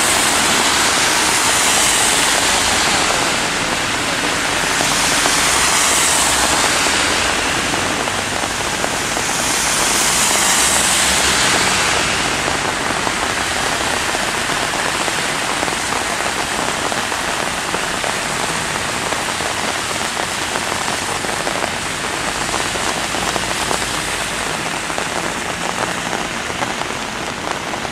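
Steady rain falling on a flooded street, with car tyres swishing through standing water. The hiss swells three times in the first twelve seconds as vehicles pass.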